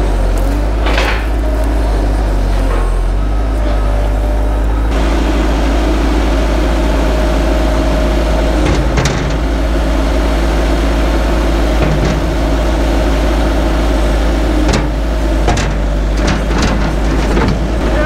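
Bobcat skid steer engine running steadily, with a few sharp metal clanks about nine seconds in and again near the end as the loader attachment is swapped from pallet forks to the bucket.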